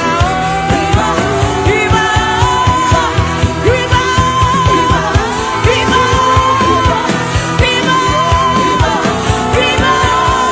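Worship music: a voice singing a long, sliding melody over accompaniment with a steady beat.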